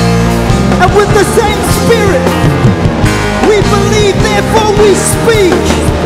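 Live rock-style band music with a man singing the lead, his melody sliding and wavering over a steady band backing.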